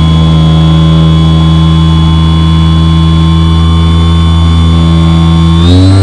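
Edge 540T RC aerobatic plane's motor and propeller heard from a camera inside the cockpit: a loud, steady whine at a constant throttle, with its pitch rising near the end as the throttle is opened.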